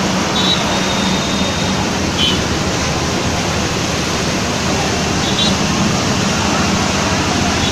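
Steady, even rushing noise with a low hum under it and a few short high chirps.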